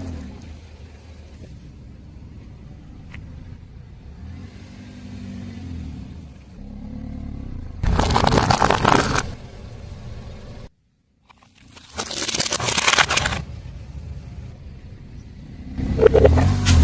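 A car's tyre rolling slowly over objects, with a low engine rumble throughout and three loud bursts of crunching and crackling as things are crushed. A short gap of silence comes just before the second burst.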